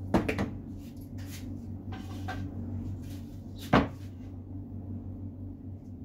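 Wooden boards knocking against a wooden workbench as they are set down and pushed into place: a quick run of knocks at the start and one sharp knock a little before four seconds in.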